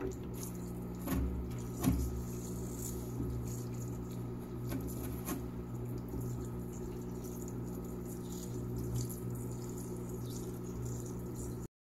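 Parts-washer tank's small electric pump humming steadily while liquid trickles from its flexible nozzle over a stone being rinsed, with a couple of light knocks about one and two seconds in. The sound cuts off suddenly near the end.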